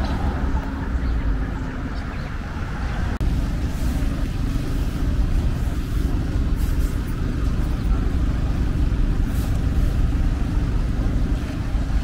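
City street traffic: a steady low rumble of passing cars, broken by an abrupt change about three seconds in.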